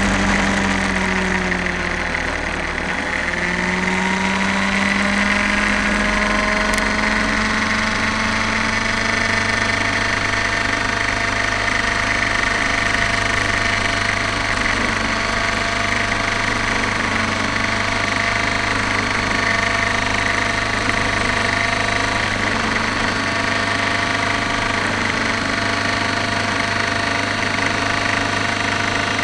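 Nitro glow engine and rotor of an X-Cell 60 radio-controlled helicopter, heard from a camera mounted on the helicopter. The engine note dips about two seconds in, then climbs back up and holds a steady drone as the helicopter lifts off and hovers.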